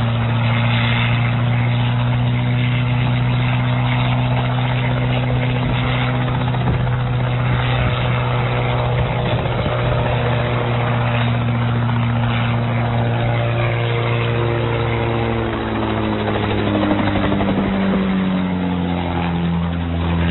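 Light piston helicopter's engine and rotor running loudly and steadily as it lifts off and sways unsteadily in the air. In the last few seconds the pitch shifts and the sound grows uneven as the aircraft loses control and goes down toward the snow.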